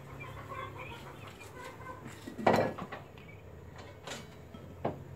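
Dishes and utensils clattering as food is put onto a plate: one sharp knock about halfway through and a few lighter taps later, over a faint steady low hum.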